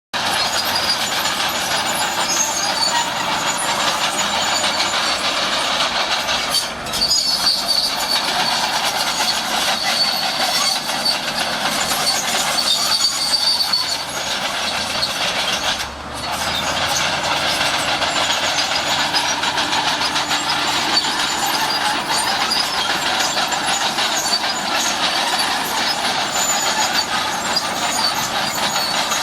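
Shantui SD16 crawler bulldozer at work: the diesel engine runs under load while the steel tracks clank and squeal. The sound is continuous and loud, dropping out briefly twice.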